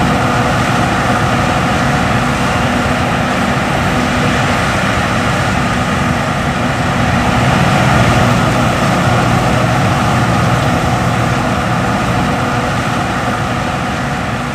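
John Deere S550 combine running steadily while harvesting, its engine and threshing machinery making a continuous, even drone that fades slightly near the end.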